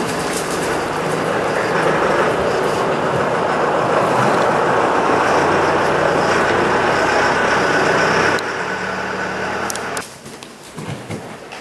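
A loud, steady mechanical drone with a low hum under it. It drops in level about eight seconds in and cuts off sharply near ten seconds.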